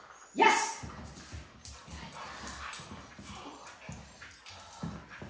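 A pit-mix dog gives one short, loud bark about half a second in, then scuffles during a tug game, with paws and the toy knocking on the concrete floor.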